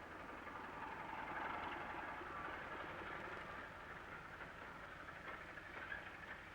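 Railway locomotive moving slowly: a low, steady rumble and hiss that swells about a second in and eases off near the end.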